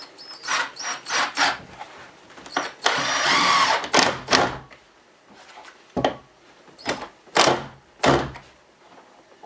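Cordless drill run in a series of short bursts, with one longer run about three seconds in, as it works into the wooden frame of a small cat door.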